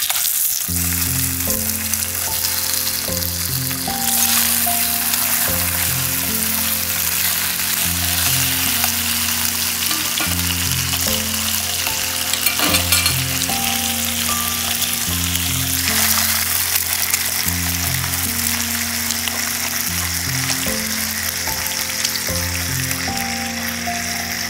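Slices of meat sizzling steadily in hot oil in a small frying pan over a wood fire. Background music with slow changing low notes plays underneath.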